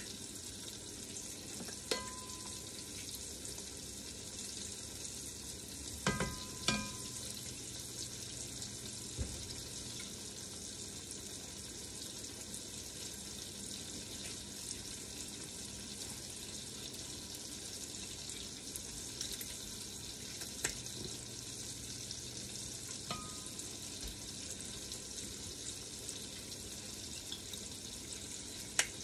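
Leeks and garlic sizzling steadily as they fry in an enameled cast-iron Dutch oven, with a few sharp knocks of utensils against the pot, the loudest a pair about six seconds in.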